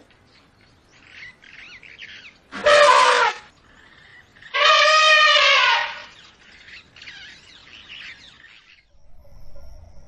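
Elephant trumpeting twice: a short call about two and a half seconds in, then a longer one of about a second and a half shortly after. Faint high chirps sound in the background between and after the calls.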